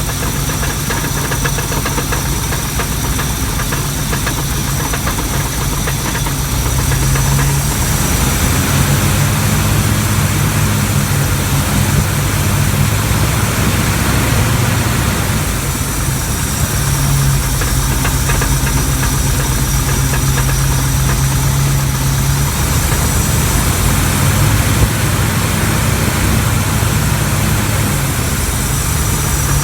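Chrysler 340 small-block V8 with a FiTech throttle-body fuel injection conversion idling, its speed shifting slightly a few times, with a fast, steady knock running through it that the owner suspects may be rod knock.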